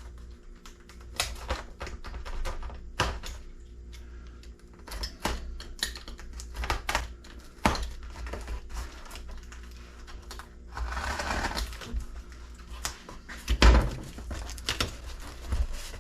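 Cardboard boxes of solar panels being handled and opened: scattered knocks and taps, a rasping stretch of about a second roughly two-thirds of the way in, and a couple of heavier thumps soon after, over a faint steady low hum.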